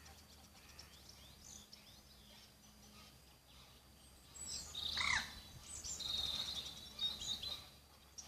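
Wild birds chirping and calling over faint outdoor background noise. The calls grow busier about halfway through, and the loudest is a short call that falls in pitch.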